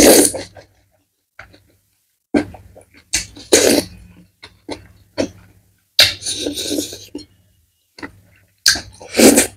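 Close-miked slurping of sauced black noodles, in four loud bursts about three seconds apart, with smaller wet mouth and chewing sounds between.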